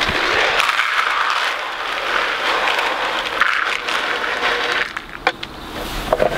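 Grain poured from a bag into a plastic chicken feeder trough: a steady hiss that stops about five seconds in, followed by a few clicks.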